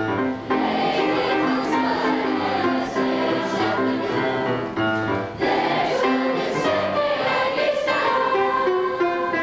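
Mixed high school choir singing with grand piano accompaniment, in held phrases with a short break about half a second in and another a little past halfway.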